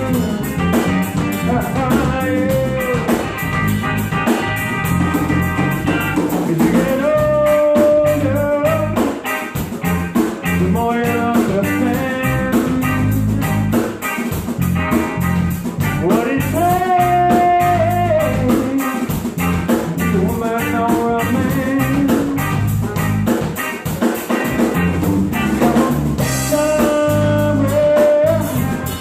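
A live band playing a rock song with drums, bass and guitar, in a passage without recognisable lyrics. Long held notes bend up and down in pitch over a steady beat.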